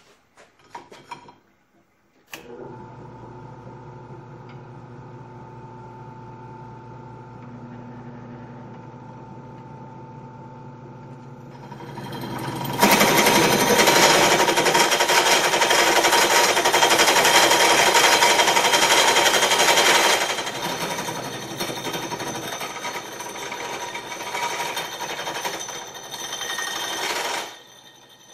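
Bench drill press switched on about two seconds in, its motor running with a steady hum. From about halfway through, a hole saw bites into a metal exhaust tube with a loud, harsh rasping that is the loudest part. The cutting then eases to lighter rasping before the press stops near the end.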